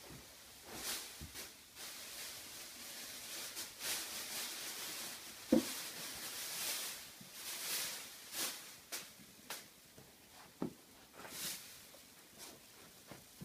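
Plastic masking sheeting crinkling and rustling in short, irregular swishes as someone moves through and brushes against it, with a couple of light knocks.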